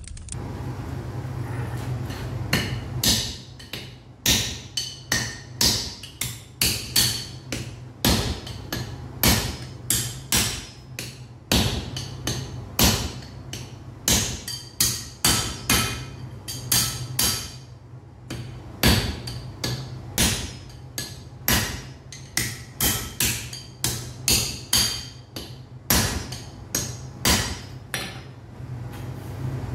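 Blacksmith's hammer striking iron on an anvil, blow after blow at about two to three a second in runs with short pauses, each strike with a bright metallic ring. A steady low hum runs underneath.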